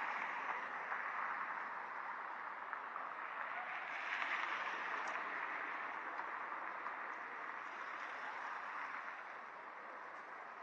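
Outdoor city ambience: a steady wash of noise from traffic and people that swells about four seconds in and eases a little toward the end.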